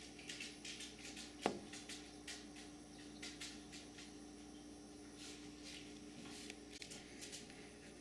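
Faint rustling and handling noise from a handheld camera being moved, with a sharp click about a second and a half in, followed by a low steady hum that lasts several seconds.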